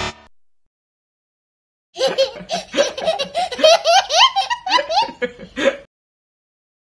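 A young child laughing heartily in high-pitched peal after peal, starting about two seconds in and stopping about four seconds later. It is preceded by the end of a wrong-answer buzzer, which cuts off at the very start.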